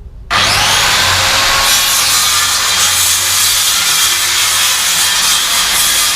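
Circular saw starting about a third of a second in and spinning up, then cutting steadily through pallet wood along the edge of the boards.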